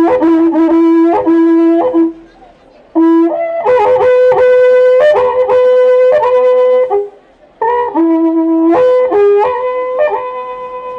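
Cacho (waqra puku), an Andean horn trumpet made of cattle horns, played loud in long held notes that step between a few pitches, with two short breaks about two and seven seconds in.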